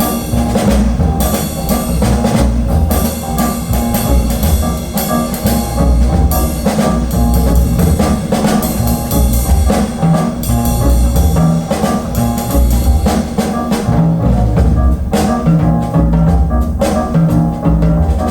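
Jazz-style recorded music with drum kit and a strong bass line, played back loud over a high-end hi-fi system of VAC valve electronics driving Gershman Acoustics loudspeakers.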